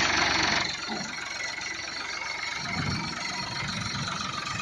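Heavy farm-machinery engine running at idle with a steady low, pulsing rumble. It opens under a loud hiss that cuts off abruptly under a second in.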